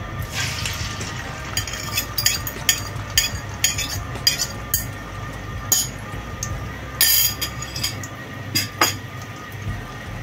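A metal fork clinking and scraping against a ceramic bowl in a quick, uneven run of sharp taps as beaten egg is scraped out into a frying pan.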